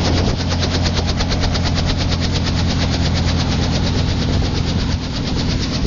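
Helicopter running steadily, with a deep steady hum and a fast, even pulsing over it.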